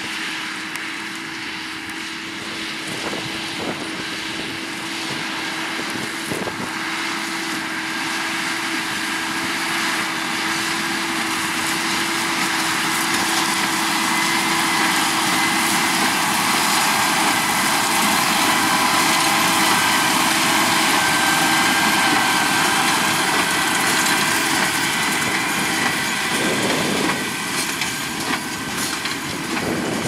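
John Deere 6250R tractor's six-cylinder diesel running steadily under load, pulling a Case IH LB436 HD large square baler that is picking up and baling straw. The sound grows louder through the middle as the outfit passes close, then eases off near the end.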